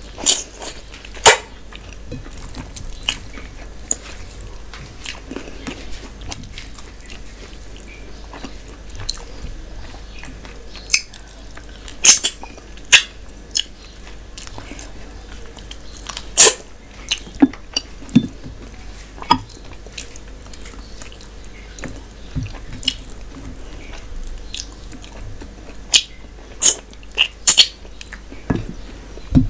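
Close-miked eating by hand: chewing of mutton curry and rice with wet mouth clicks and smacks, heard as sharp, irregular ticks scattered throughout, and fingers squishing rice and curry together on a steel plate.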